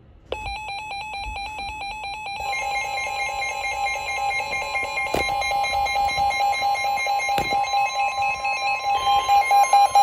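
Weather alert radios sounding their warning alarm: a rapid warbling alert tone starts a moment in, and about two seconds in a steady single-pitch tone near 1 kHz joins it, the NWS warning alert tone. Two sharp clicks come in the middle.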